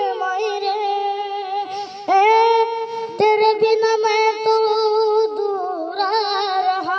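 A boy's high voice singing unaccompanied into a handheld microphone, holding long drawn-out notes on a Hindi film song melody, with brief breaths about two and three seconds in.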